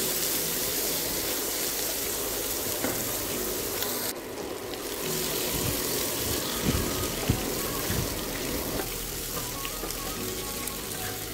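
Boiled potato cubes sizzling in oil in a pan as a wooden spatula stirs them, with a few light knocks of the spatula on the pan a little past the middle. Soft background music plays underneath.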